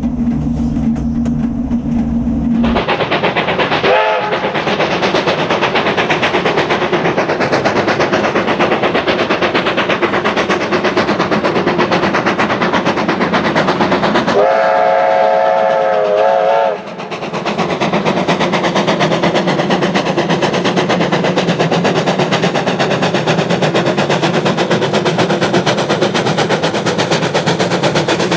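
Steam locomotive Ab 608, an NZR Ab class, passing with its train: fast exhaust beats and rail noise, a short whistle toot about four seconds in and a long whistle blast of several tones at once around the middle. After that the carriages roll past with a steady clickety-clack over the rail joints.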